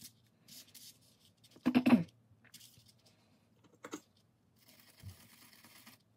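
Small handling noises: a few light clicks and scrapes, with a louder short rattling scrape about two seconds in and a sharp click near four seconds.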